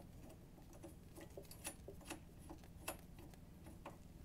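Faint, irregular small clicks of a washer and nylock nut being fitted by hand onto a crash-bar bolt.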